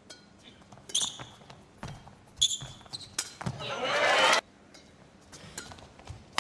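Badminton rally in a hall: sharp racket strikes on the shuttlecock and short high squeaks of court shoes, then a louder swell of crowd noise for about a second after the point ends, followed by scattered light clicks.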